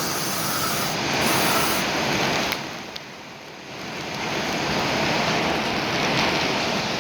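Heavy rain falling, a steady hiss that drops away briefly about three seconds in and then builds back up.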